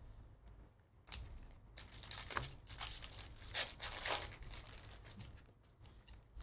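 Foil trading-card pack wrappers crinkling and tearing as packs are ripped open and cards handled, in irregular scratchy rustles that die down near the end.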